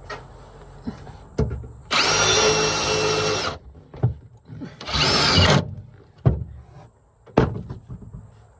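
Cordless drill running in two bursts, a longer one and then a short one, with knocks and thumps of handling between them.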